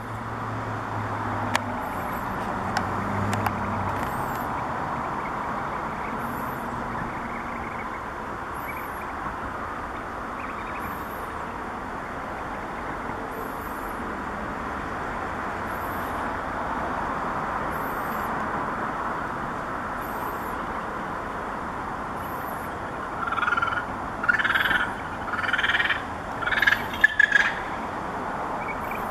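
Australasian darter chicks calling at the nest during feeding. Near the end comes a run of about six loud calls over a steady background noise.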